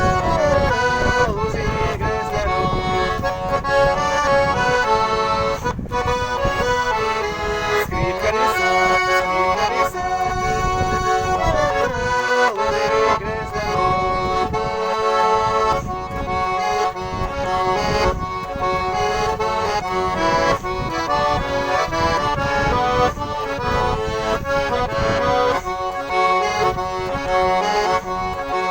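Garmon (Russian button accordion) playing an instrumental passage at a brisk tempo: a melody over a steady pumping bass-and-chord accompaniment.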